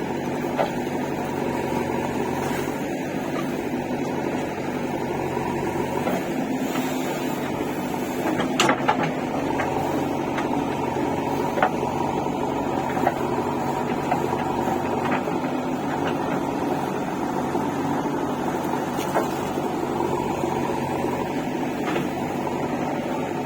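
An engine running steadily with an even drone, with a few short clicks and knocks over it, the strongest about eight to nine seconds in.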